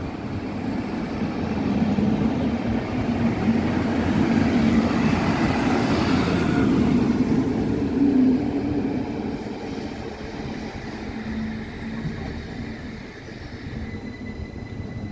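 Arriva Alstom Coradia LINT 41 diesel multiple unit passing close by, its diesel engine rumbling along with wheel-on-rail noise. The sound swells over the first couple of seconds, holds, then fades from about eight seconds in as the train pulls away.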